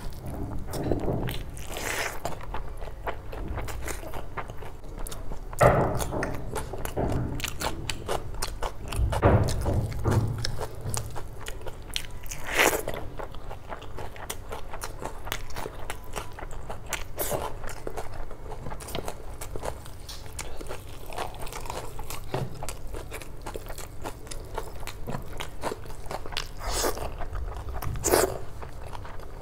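Close-up eating sounds of a person chewing mouthfuls of curry-soaked rice and chicken, with a steady run of small mouth clicks and several louder bites.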